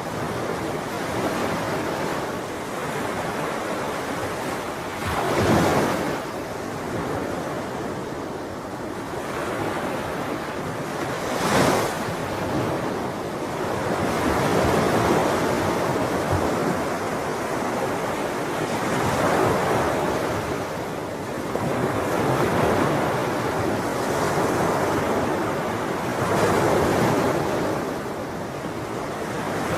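Ocean surf: waves breaking and washing in, the rush swelling and easing every few seconds, with two sharper crashes about five and twelve seconds in.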